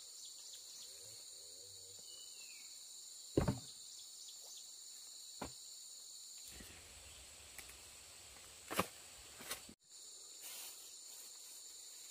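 Steady high-pitched chorus of insects, with four sharp knocks through it, the loudest a little over three seconds in, and a brief dropout near the end.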